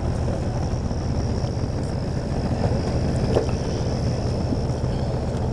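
Steady low rumble of a vehicle engine running, with a faint, steady high-pitched tone above it.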